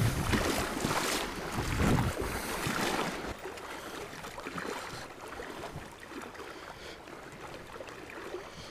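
Wind gusting on the microphone over the steady rush of flowing river water, heaviest in the first three seconds, then settling to a quieter, even rush.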